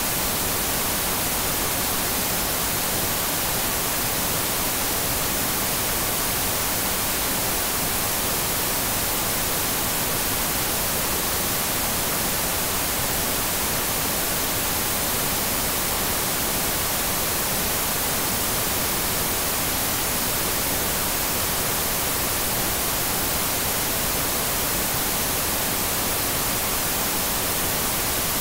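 TV static: a steady, even hiss of noise with no breaks or changes, brightest in the high end.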